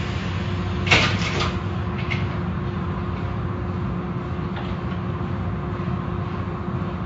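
Steady mechanical rumble and hum of car wash machinery, with a short clatter of knocks about a second in.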